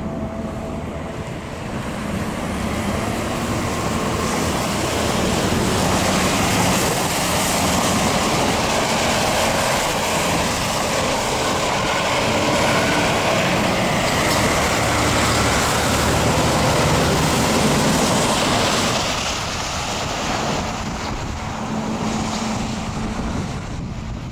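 Road traffic passing, cars and a box truck, with engine rumble and tyre hiss on wet pavement. It builds about two seconds in, stays loud as vehicles pass close, and eases off near the end.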